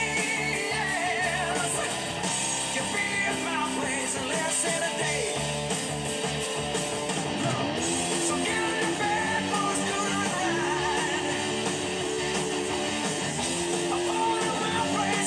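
Hard rock recording playing, with electric guitar and a singing voice.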